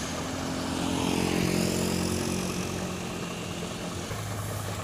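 Diesel engines of an Iveco Trakker truck towing a loaded Renault truck uphill, running steadily under load. A motor scooter passes close by, and the sound swells for the first couple of seconds before easing off.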